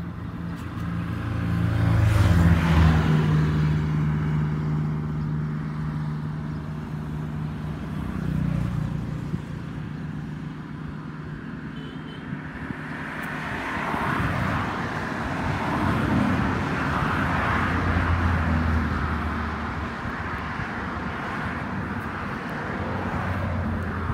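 A motor engine droning steadily, growing louder about two seconds in and again around the middle to late part, like a vehicle running and passing close by.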